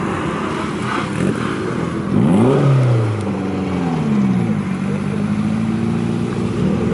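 Engines of Japanese sports cars running in a slow queue. About two seconds in, one engine is revved once, its pitch rising sharply and falling back; after that the engines run steadily at low revs.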